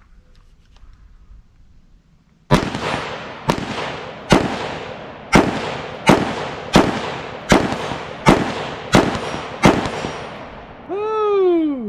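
A rifle fired about ten times at a steady pace, the shots coming a little under a second apart, each with a short echo trailing off. Near the end there is a drawn-out tone falling in pitch.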